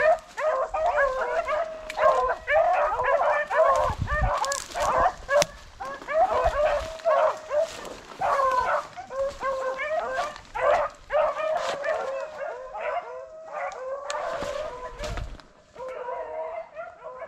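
A pack of rabbit hounds in full cry, many baying and yelping voices overlapping as they run a freshly jumped rabbit on its scent. The chorus grows fainter near the end.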